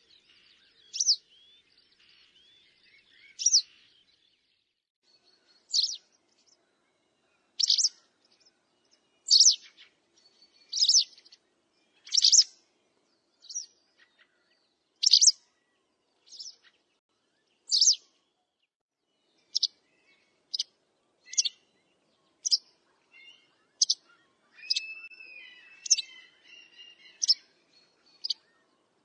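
Wagtail calls: short, sharp, high call notes repeated about once every second or two, with a brief run of twittering notes near the end.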